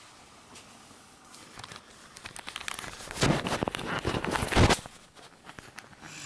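Handling noise from a handheld camera being picked up and moved: fingers rubbing and knocking on the body, a run of rustles and clicks with two louder bumps near the middle.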